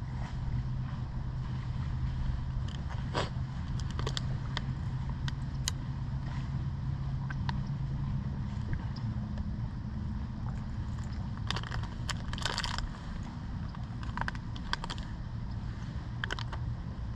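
Trek Domane road bike riding along a road: steady tyre and wind noise, with scattered clicks and rattles from the bike over the road surface, thickest a little past the middle. A low steady hum runs under the first half.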